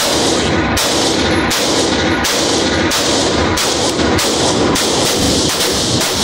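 Gunshots fired in a steady rapid string, about one every 0.7 seconds, echoing through an indoor shooting range.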